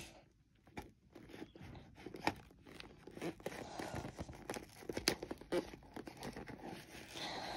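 A small screwdriver picking and scraping at the edge of a cardboard toy box, making irregular clicks, scratches and light tearing of the cardboard.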